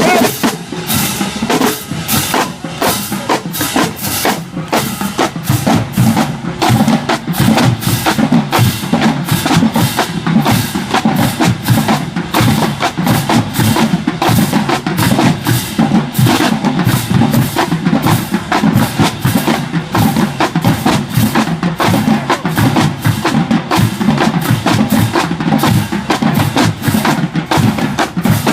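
High school marching band drumline playing a marching cadence: snare and bass drums in fast, even, continuous strokes.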